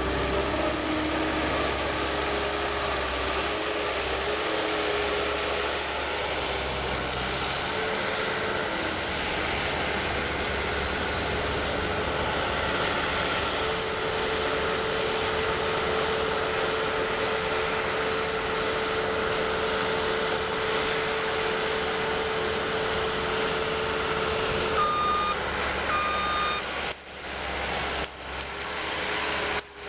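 New Holland L230 skid steer loader running, a steady engine drone with a held whining tone that wavers at first and then holds level. Near the end come two short beeps from its backup alarm, followed by brief dips in the sound.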